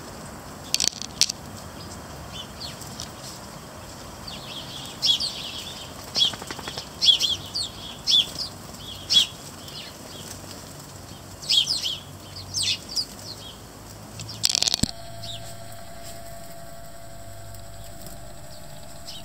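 A flock of house sparrows chirping in short, sharp, irregular bursts while birds flutter their wings coming and going at a seed feeder.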